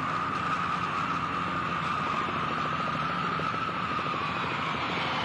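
Boeing 727 jet airliner's three Pratt & Whitney JT8D turbofan engines running with a steady high whine over a rushing roar as the jet lands.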